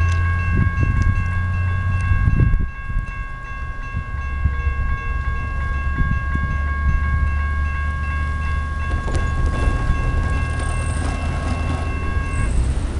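Railroad crossing warning bell ringing steadily while the crossing gates come down, stopping near the end once the gates are horizontal. A steady low rumble runs underneath.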